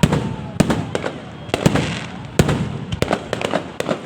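A fireworks display: loud aerial shells bursting in an irregular rapid series, about ten bangs in four seconds, each followed by a low rumbling echo, with a faint whistle in the first moment.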